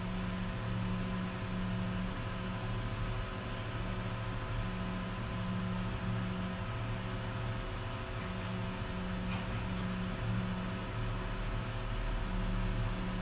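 XT-D3 Pro dual-extruder 3D printer running a TPU print: its stepper motors whir in short moves of varying length as the print head travels, over a steady hum and hiss.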